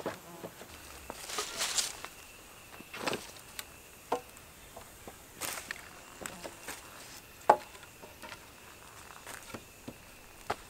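Timber poles knocking and scraping as they are handled and laid against a lean-to shelter frame: scattered single knocks with short rustles underfoot in leaf litter, over a faint steady insect drone.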